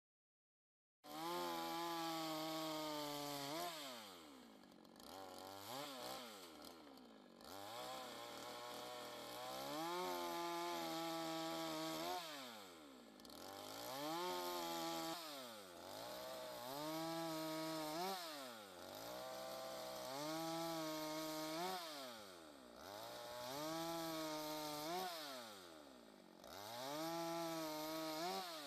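Patriot GS142 two-stroke chainsaw with a new chain in its break-in period, sawing a white acacia log. It comes in about a second in at full throttle, then drops and climbs again over and over, about every two to three seconds, as the throttle is eased and opened again during the cut.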